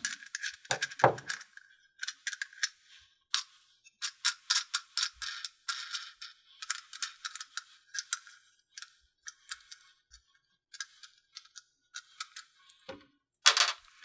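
Quick, irregular little metal clicks and rattles as wing nuts are spun off the threaded studs of the control keypad's metal mounting bracket, with a louder knock near the end.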